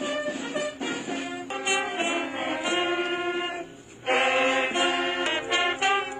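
Brass band music: short notes, then long held notes, a brief break a little before four seconds in, and a loud held chord right after it.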